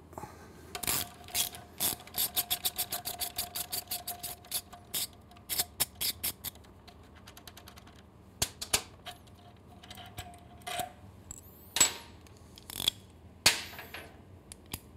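Socket ratchet wrench clicking as it loosens the muffler's 12 mm mounting bolt, a quick run of several clicks a second for about five seconds. After that come a few scattered clicks and some louder metal clinks.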